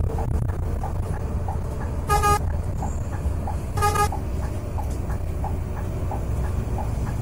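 Steady engine and road drone inside the cabin of a Scania K410 coach, with two short blasts of the coach's horn about a second and a half apart as it closes on a pickup truck ahead. A faint tick repeats about twice a second.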